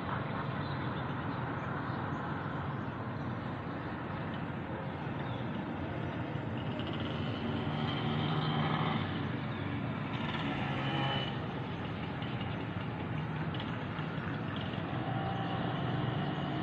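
Steady distant road traffic hum across a city, swelling a little twice around eight and ten seconds in as louder vehicles pass.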